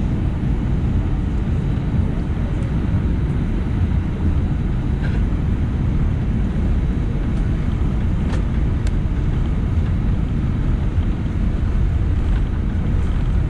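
Steady low cabin rumble of an Airbus A319-111 taxiing, its CFM56 engines at low taxi thrust, with a few faint ticks around the middle.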